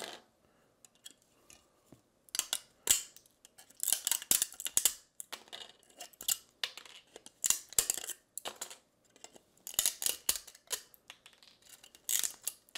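Pliers snapping and crunching printed support material off a 3D-printed plastic boat cabin, in bursts of sharp cracks and clicks a second or two apart.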